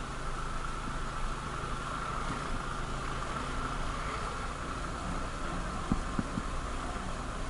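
Motorcycle engine running steadily while the bike rides a rough, broken road, heard from a camera on the handlebars. A few short knocks come about six seconds in.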